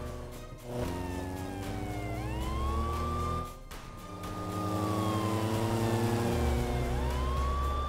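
Police car siren wailing: a tone that slides slowly down and then sweeps quickly back up, twice, over a low steady engine drone. The sound dips briefly a little over three seconds in.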